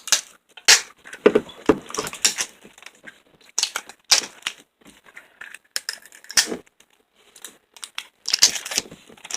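Hands working slime and its plastic packaging: irregular bursts of sticky crackling, tearing and crinkling noises.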